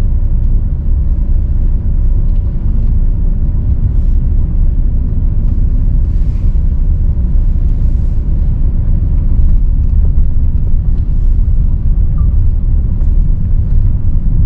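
VW T6.1 Transporter campervan on the move: a steady low engine and road rumble heard from inside the cab.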